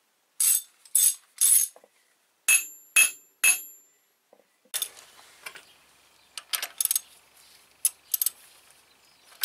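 Six sharp metallic clinks that ring briefly, in two groups of three about half a second apart, followed about a second later by quieter, irregular clicks and clinks of a metal wrench being worked on an engine's crankshaft bolt.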